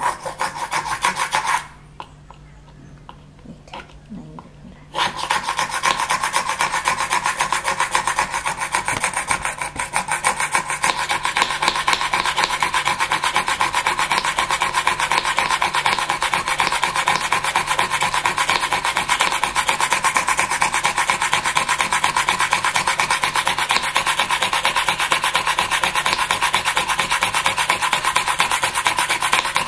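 Hand drill grinding into a Tanjore painting board, cutting shallow seats for AD stones. A short burst at the start, a pause of about three seconds, then continuous drilling with a fast, even pulse to the end.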